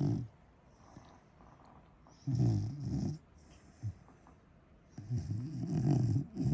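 Corgi snoring loudly in its sleep: low, rasping snores about a second long, one on each breath, coming roughly every two and a half seconds.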